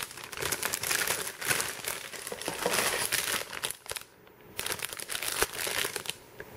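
Thin plastic bag holding model-kit parts runners crinkling as it is handled, with many small crackles and a short pause about four seconds in.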